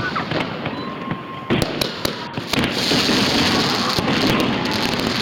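Fireworks going off: a few sharp bangs in the first two seconds, then a dense, continuous crackle from bursting shells.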